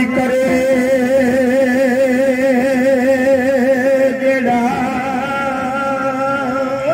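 A man's voice holding a long sung note with a strong wavering vibrato, moving up to a higher held note about four and a half seconds in.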